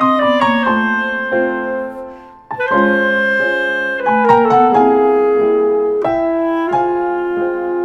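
Instrumental background music led by piano, in phrases of notes that step downward, with a short break about two and a half seconds in.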